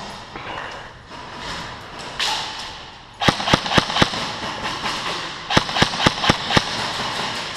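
Airsoft gun firing two quick strings of sharp shots, five a little over three seconds in and six more about two seconds later, over the rustle of movement.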